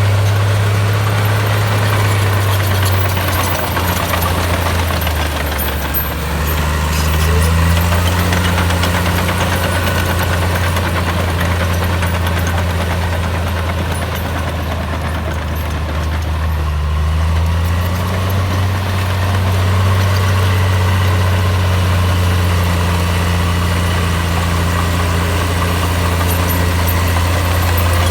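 Diesel engine of a Komatsu bulldozer running steadily. Its note drops about six seconds in and rises again near eighteen seconds.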